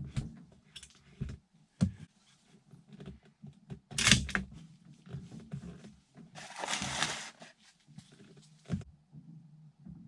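Handling noises: scattered clicks and knocks, a sharper knock about four seconds in, and a brief rustling scrape near seven seconds.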